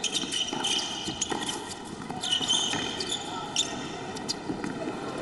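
A tennis ball being bounced on a hard court between points: a few separate, irregular knocks over the low murmur of an indoor arena crowd.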